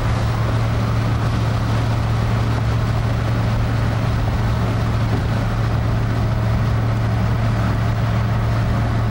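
Steady road and engine noise heard from inside a vehicle cruising on a highway, with a constant low hum.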